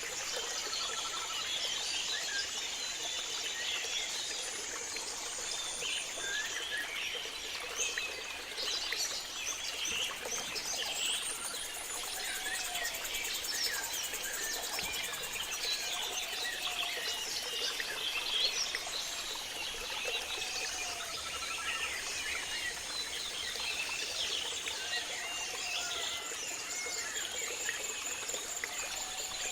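Tropical rainforest chorus: many birds chirping and trilling over one another, with repeated low arched whistles. A steady high-pitched insect drone runs for the first few seconds, and pulsing high insect buzzes come and go later.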